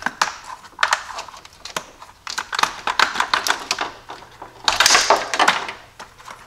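Engine wiring harness and its sheathing being worked loose by hand, with irregular plastic clicks and clatters and bursts of rustling. The loudest burst comes about five seconds in.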